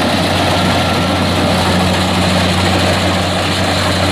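Kubota DC-70 combine harvester's diesel engine running steadily with a low, even hum.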